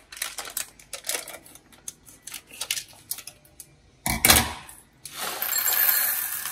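Plastic packet crinkling and crackling as it is handled and opened, a single knock about four seconds in, then dried red beans pouring and rattling into a ceramic bowl.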